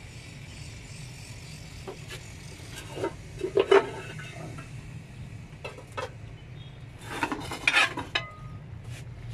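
Steel cooking pot and metal utensils clattering and scraping as they are handled on a gas stove, in two clusters of clanks about three and seven seconds in, over a steady low hum.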